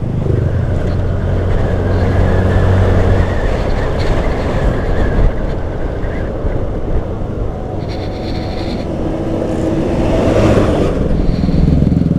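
Motorcycle engine running steadily while riding at road speed, under a constant rush of wind and road noise.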